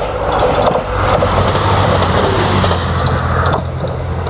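Super Matsukaze diesel express train (KiHa 187 series) rushing past close by, with a dense rumble of wheels on rail. The rush cuts off about three and a half seconds in as the last car clears, leaving a steady low drone.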